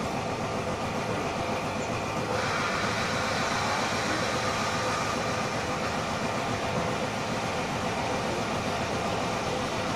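Steady mechanical running noise with a dense, fast rattle underneath and a few steady tones; it turns brighter and hissier about two seconds in.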